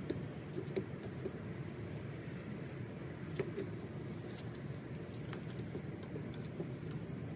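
Light rain falling, with scattered single drops ticking sharply close by over a steady low background noise.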